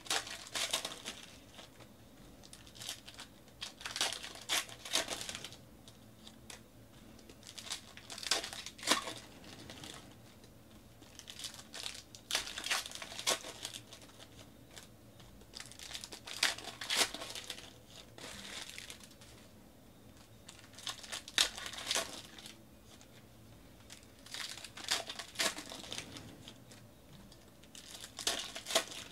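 Foil wrappers of Panini NBA Hoops basketball card packs being torn open and crinkled, in repeated crackly bursts every few seconds with quieter handling in between.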